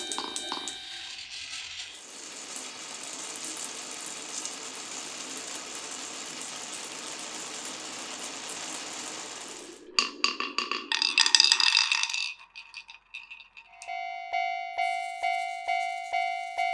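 Glass marbles running through a wooden marble run: a steady rolling sound for about eight seconds as a marble travels along the track, then a quick loud clatter of clicks as marbles knock over wooden pieces. Near the end a railway-crossing bell rings in an even beat, about twice a second.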